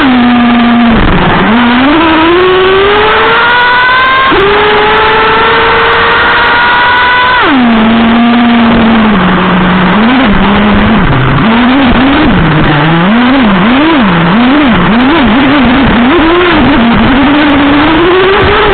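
Traxxas Revo 3.3 nitro RC truck's small two-stroke glow engine, heard from a camera on the truck: it revs up under throttle, its pitch dropping and climbing again about four seconds in as the two-speed gearbox shifts up. Near the middle it falls back to a low, steady running note, then is blipped up and down in quick, repeated throttle bursts.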